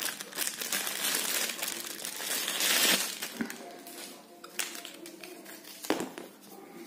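Clear plastic bag and paper wrapping crinkling as a wristwatch is unwrapped by hand, loudest about three seconds in; then quieter handling with two sharp clicks.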